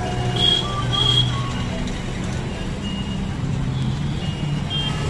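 Busy street traffic with a motor vehicle engine running close by, its hum shifting a little in pitch, and two short high beeps in the first second or so. People's voices are mixed in.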